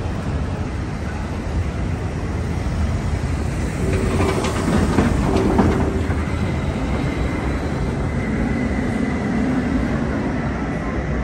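City street traffic dominated by trams running on street rails: a steady rumble, with a louder patch of clatter and knocks from the wheels and track about four to six seconds in, and a faint high whine through the second half.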